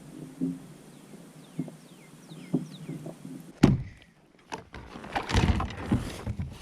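Sounds on a fishing kayak: a bird gives a run of short descending whistles, then a single sharp knock comes about halfway through, followed by a burst of water splashing and handling noise as a small bass is brought in.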